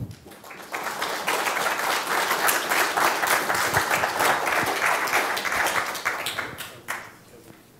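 Audience applauding, a dense patter of many hands clapping that starts about a second in, holds steady, and dies away near the end.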